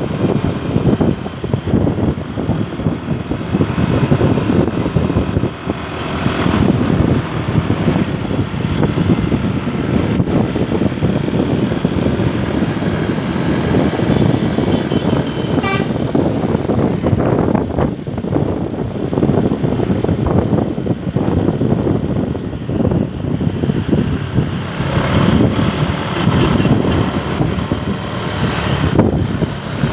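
Large bus running close by, its engine and road noise dominating, with the multi-tone basuri (telolet) air horn sounding on and off, most clearly near the end.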